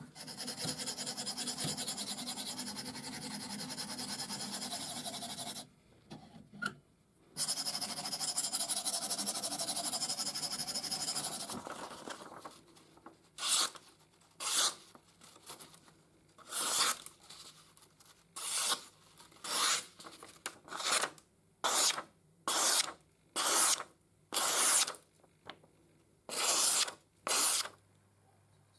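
A steel knife blade being sharpened, a continuous rasping scrape lasting several seconds, broken once by a short pause. It is followed by a dozen or so short, crisp slicing sounds, about one a second, as the freshly sharpened edge cuts through paper.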